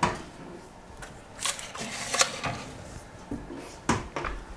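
Built-in oven being loaded: knocks and clatter as the metal springform tin goes in on the oven rack, then a sharp knock a little before the end as the oven door shuts.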